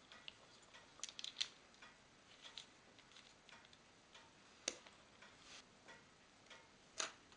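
Faint, irregular small clicks and taps as the plastic parts of a small battery torch, the bulb holder and the barrel with its brass contacts, are handled in the fingers.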